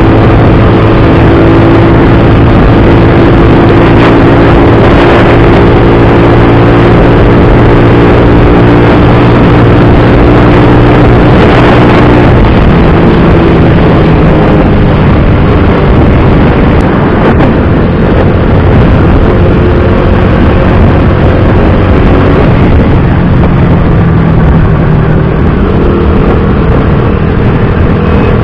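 Freshly tuned-up Rusi Bantul scooter engine running at cruising speed under loud wind rush on the handlebar camera. The engine note drops about twelve seconds in and climbs again near the end.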